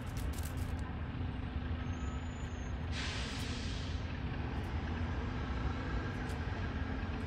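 Steady low rumble of city traffic. About three seconds in, a truck's air brakes let out a sudden hiss lasting about a second.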